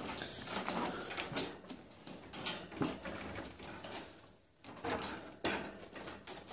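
Irregular rustling and light knocks and clatters from handling at a wire rat cage and its door.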